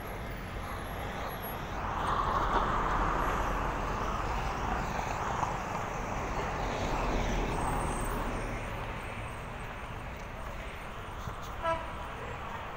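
Street traffic: a passing vehicle swells and fades over several seconds, and a short car horn toot sounds near the end.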